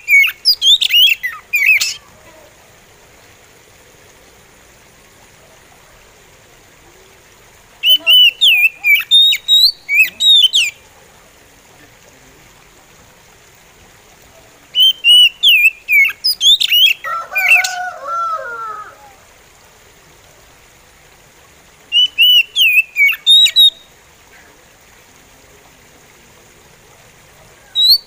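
Oriental magpie robin singing slow, sweet whistled phrases of about two to four seconds each. The phrases are separated by pauses of four to six seconds, and one phrase ends with a few lower notes.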